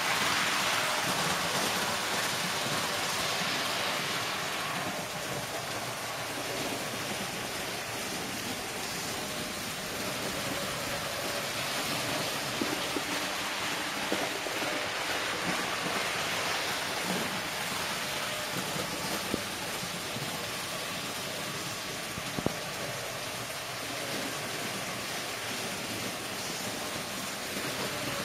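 Märklin model train, a BR 103 electric locomotive hauling tinplate TEE coaches, running on metal track: a steady rolling rumble that is loudest near the start, then settles, with a few sharp clicks about three quarters of the way through.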